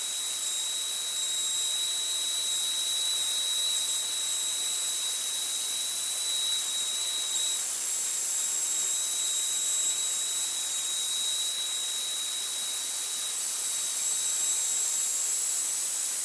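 Router cutting a wooden cylinder on a router lathe, with the footage sped up almost tenfold, heard as a steady high hiss with a thin high whine. The whine fades out about halfway through.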